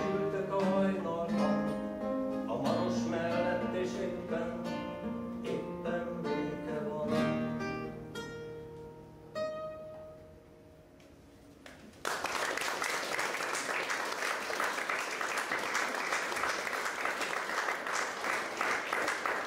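Piano accordion and acoustic guitar playing a tune that winds down to a few last ringing notes around ten seconds in. About twelve seconds in, an audience suddenly breaks into applause that carries on to the end.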